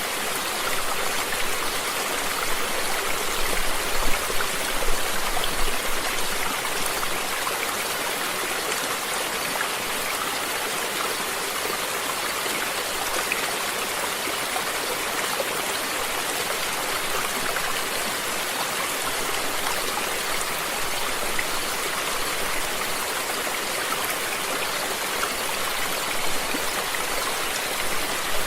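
Water running steadily in a stream, a continuous rush with small splashes, a little louder about four to six seconds in.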